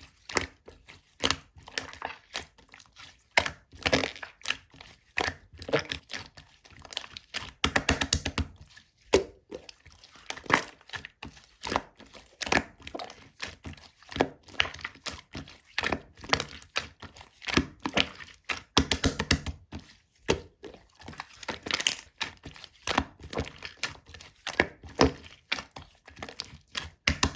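Slime being squeezed, folded and pressed by hand, giving an irregular run of sticky crackling pops and clicks, a few a second.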